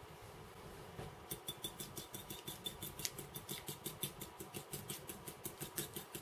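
A small wire whisk beating egg and milk in a china bowl, starting about a second in. Its wires tick against the bowl in a quick, even rhythm, about six strokes a second.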